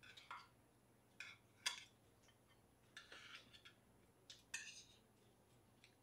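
Metal spoon and chopsticks clinking and tapping against stainless steel rice bowls while eating. About ten light, irregular clinks, with the sharpest one near the middle.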